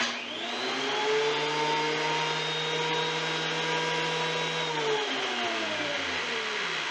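DeWalt DW734 thickness planer switched on with no board fed: its motor and cutterhead spin up within about a second to a loud, steady whine. About five seconds in it is switched off and winds down, the pitch falling.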